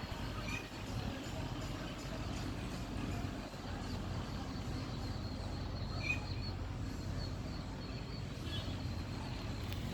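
Outdoor ambience: a steady low rumble with a few short bird chirps, one about half a second in and a sharper one around six seconds in.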